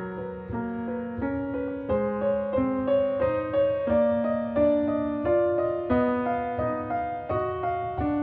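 Background music: a gentle piano melody played note by note over lower sustained notes.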